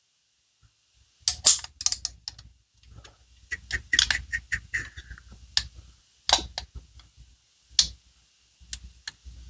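Small steel parts of a disassembled Caswell EDX folding knife clicking and tapping together as it is reassembled by hand. There are irregular sharp clicks and a brief metallic scrape near the middle, over a low handling rumble.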